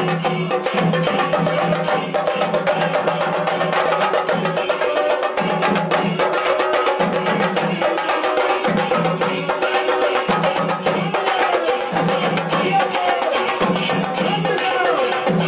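An ensemble of chenda drums beaten with sticks, many drummers playing a fast, unbroken rhythm together, with deeper strokes coming in and dropping out in phrases of about a second.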